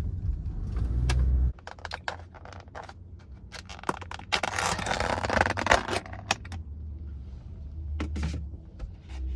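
Low rumble that cuts off about a second and a half in, then scattered clicks and a stretch of rustling and scraping as objects are handled.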